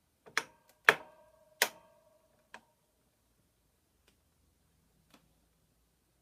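B1418DC electric fan making sharp clicking knocks, four in the first few seconds, each followed by a brief metallic-sounding ring, then two faint ticks. This is the abnormal noise that the brand-new fan makes.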